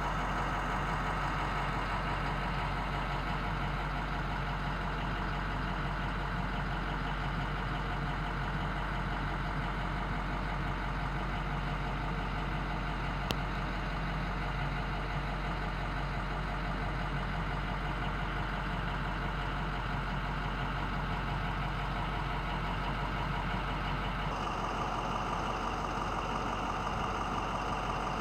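2008 International MXT's VT365 6.0-litre turbo-diesel V8 idling steadily, heard from inside the cab. There is a single light click about 13 seconds in, and the tone shifts slightly about 24 seconds in.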